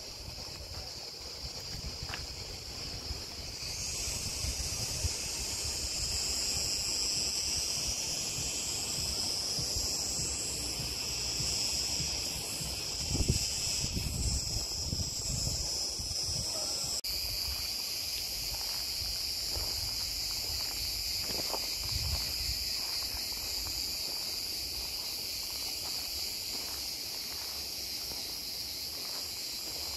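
Steady, high-pitched chorus of cicadas that swells about three seconds in and then runs on unbroken. Under it is a low rumble of wind on the microphone, with a few soft thumps.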